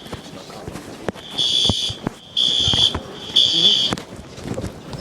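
School fire alarm sounding in the temporal-three evacuation pattern: a pause, then three high-pitched beeps of about half a second each, a second apart. Scattered faint knocks can be heard underneath.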